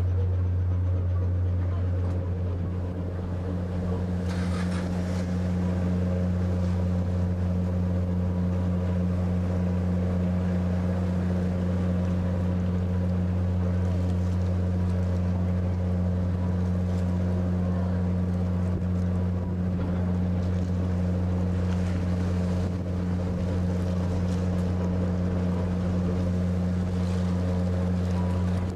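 Azalea Maru passenger ferry's engines droning steadily with a deep, unchanging hum, heard on the open deck over a hiss of wind and water rushing past the hull.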